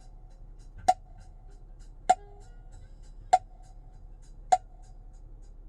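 Hand percussion from a surround-sound music demo played alone through the right rear speaker of a 2012 Acura TL's ELS audio system, heard inside the car: sharp, ringing strikes about every 1.2 seconds, five in all.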